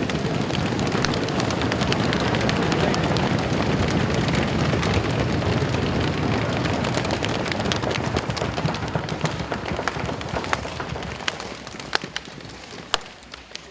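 An audience making a body-percussion rainstorm: a dense low rumble of many people stamping their feet and slapping their legs, the downpour stage of the storm, holding for several seconds and then fading away. Scattered sharp clicks stand out near the end as it dies down.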